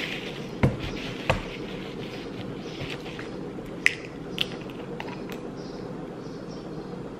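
A tight plastic screw cap on a drink bottle being twisted open through a paper towel. Two dull knocks come in the first second and a half, then a few sharp clicks between about four and five and a half seconds in as the cap gives.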